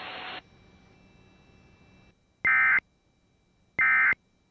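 Two short bursts of Emergency Alert System SAME end-of-message data tones, each a fraction of a second of rapid two-tone digital warbling, about 1.3 s apart, marking the end of the tornado warning. A faint hiss cuts off just before them.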